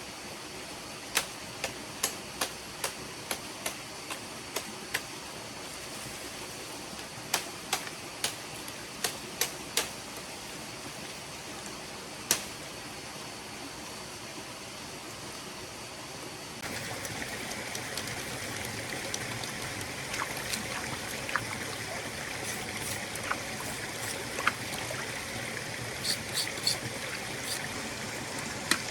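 A stream flowing steadily, with a run of sharp clicks and snaps over it in the first half. Just past the middle the water sound jumps abruptly to a louder, brighter rush.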